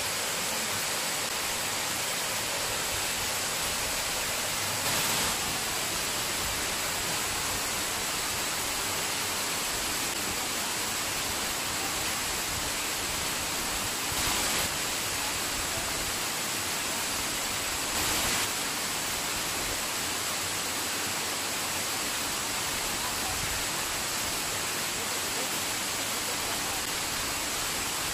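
Waterfall cascading down a rock face into a pool: a steady rush of falling water, swelling briefly louder three times.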